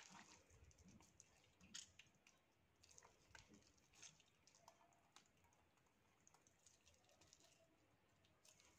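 Very faint, irregular soft clicks and squishes of fingers pressing and squeezing finely ground cauliflower on a plate to wring out its water. Otherwise near silence.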